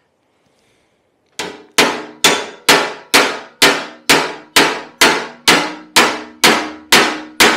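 Panel hammer beating the steel legshield edge of a Lambretta scooter against a metal dolly block held behind it: a steady run of sharp, ringing metallic clangs, about two a second, starting about a second and a half in. The panel is being planished to knock out dents along the footboard edge.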